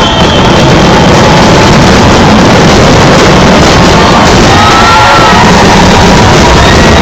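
Loud, steady din of a fireworks display, loud enough to overload the microphone: a dense, even wash of noise with music and faint crowd voices through it.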